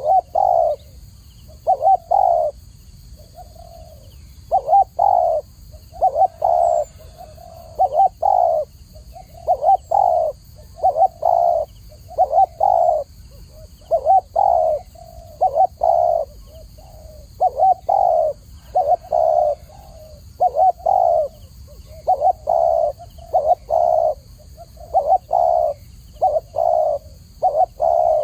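Spotted dove cooing over and over, its low notes coming in short repeated phrases.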